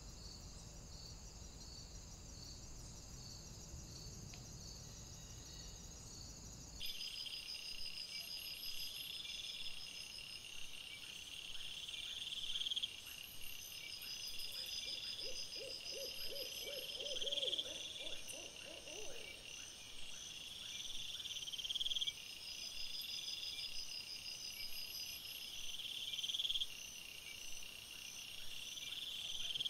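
Night insects chirping in a steady rhythmic chorus, played at double speed. The chorus changes abruptly about seven seconds in to regular pulsed chirps repeating every second or so. Around the middle, an animal gives a short run of quick, low pulsed calls lasting about four seconds.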